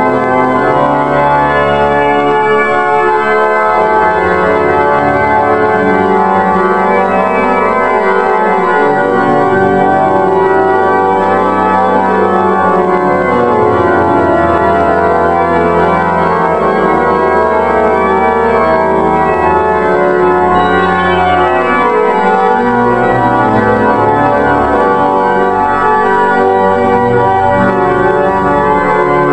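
Church pipe organ playing loudly and steadily, with sustained full chords over a bass line that moves every second or two.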